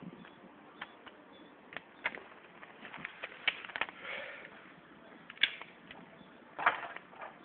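Wood bonfire crackling, with irregular sharp pops; a few louder pops come about halfway through and near the end.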